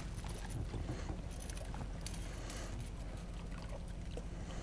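Steady low wind rumble on the microphone, with a few faint small clicks over it.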